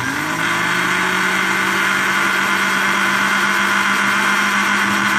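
Electric blender motor switched on at a low setting, spinning up quickly and then running steadily as it whips raw eggs, vinegar and seasonings in its glass jug.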